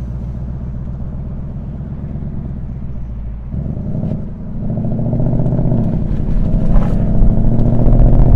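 Ford Mustang GT's 5.0-litre naturally aspirated V8 with active-valve exhaust, first running at a steady low cruise. About three and a half seconds in it is put under throttle: the engine note climbs and gets steadily louder as the car accelerates.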